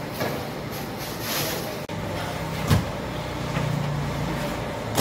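Steady low mechanical hum, engine-like, with a brief dropout near two seconds and a single sharp knock shortly after.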